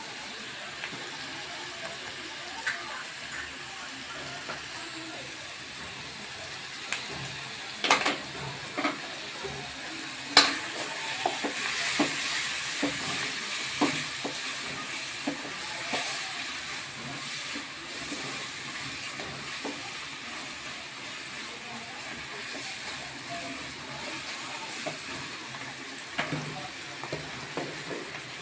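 Onions and tomatoes frying in a metal kadhai: a steady sizzle, with the stirring spatula scraping and knocking against the pan now and then, most often in the middle stretch.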